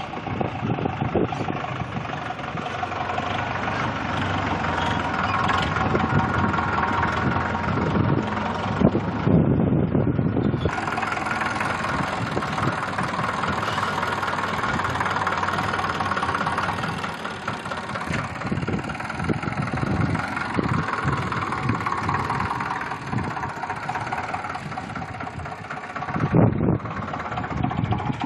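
Sonalika tractor's diesel engine running steadily as the tractor drives over a worked field. It is heard close up from on board from about ten seconds in.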